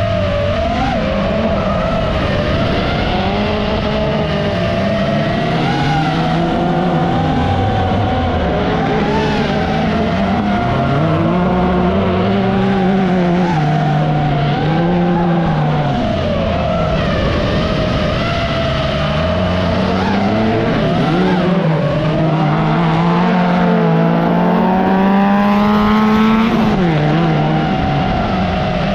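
Autorallycross race car engines revving hard, the pitch climbing and dropping repeatedly through gear changes, with some tyre skidding. A steady higher whine runs over it throughout.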